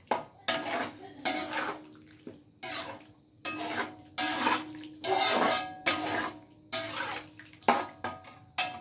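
Metal spatula scraping and knocking against a metal wok while a thin, soupy stew is stirred, about one stroke a second, each stroke making the pan ring briefly.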